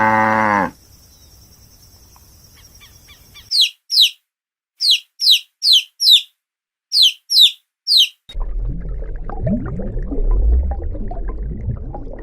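A cow's moo ends within the first second. After a short faint gap, a small bird gives a run of about a dozen quick, high chirps, each sweeping downward in pitch. From about eight seconds in, a loud low rumble with scattered low calls takes over.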